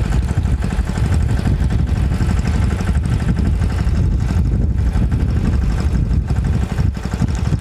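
Saneda, a small homemade farm tractor, with its engine running steadily and evenly as it pulls an inter-row weeding cultivator through a cotton field.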